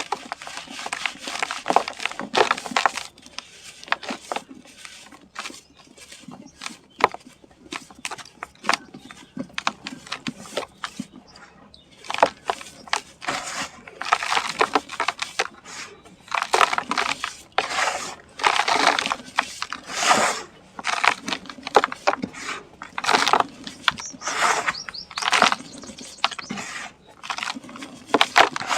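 Dusty sand-cement chunks being crumbled, giving irregular clusters of crunching and crackling, busier in the second half.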